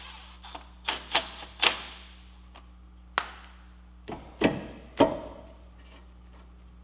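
A series of sharp metallic clanks and knocks, about six in all, each ringing out briefly: a cast iron brake rotor and tools being handled against the wheel hub. The loudest come near the start and about five seconds in.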